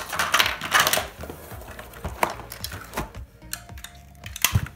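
Hard plastic toy track pieces clacking and rattling as they are handled and lifted out of a cardboard box, with a quick flurry of clicks in the first second and a few single knocks later. Background music runs underneath.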